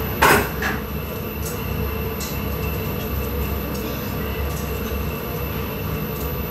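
Steady low roar of glass furnaces and their extraction fans, with one sharp loud clink right at the start and a few faint ticks after it.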